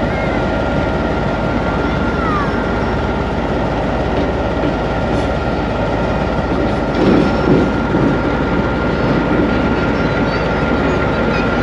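Diesel-electric locomotive and train running steadily as it pulls slowly into the station, a continuous rumble with a faint steady whine and a few faint squeaks, heard from the locomotive cab. The noise swells briefly about seven seconds in.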